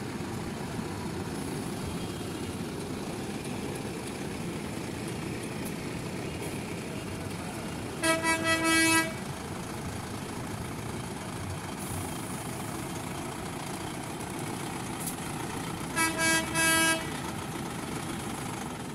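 Farm tractors' diesel engines running steadily as they roll slowly past. A tractor horn sounds two bursts of short toots, one about halfway through and one near the end; these are the loudest sounds.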